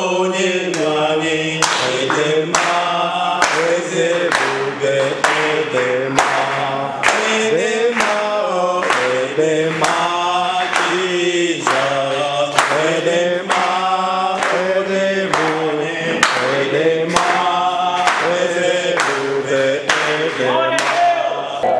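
A man singing a worship song in a Nigerian language into a microphone, with steady hand claps keeping the beat, a little more than one a second.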